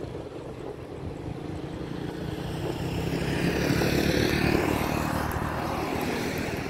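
A black SUV driving past close by on the road, its tyre and engine noise swelling to a peak about four seconds in and then fading as it goes by. A motorcycle follows near the end.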